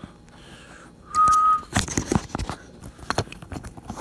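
A single short electronic beep, one steady tone about half a second long, about a second in, surrounded by clicks and knocks of a camera being handled.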